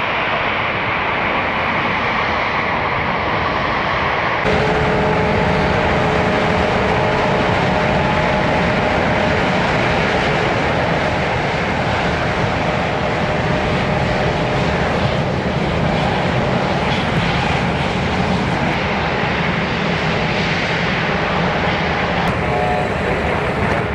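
Airbus A350-900's jet engines running steadily. About four seconds in the sound grows louder and fuller, with a few steady tones held for several seconds.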